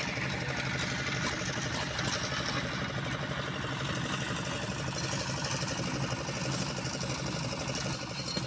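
An engine running steadily at idle, a low, even hum.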